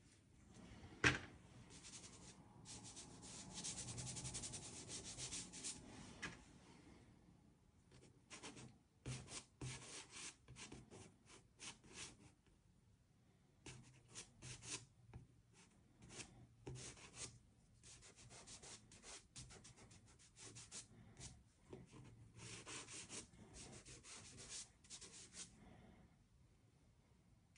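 Faint scraping and rubbing of soft pastel sticks on paper: a sharp tap about a second in, a longer stretch of steady rubbing a few seconds in, then many short, quick strokes that stop shortly before the end.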